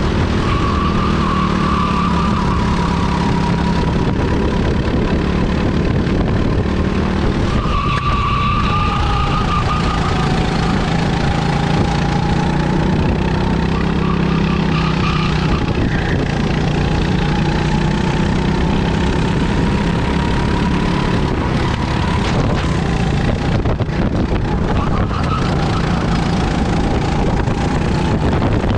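Kart engine running hard at racing speed, its note rising and falling as the kart brakes and accelerates through the corners, heard from the onboard camera with steady wind and road noise.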